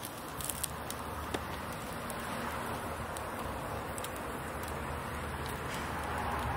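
Charcoal fire under a grill of meat: a steady hiss with a few small pops about half a second to a second and a half in.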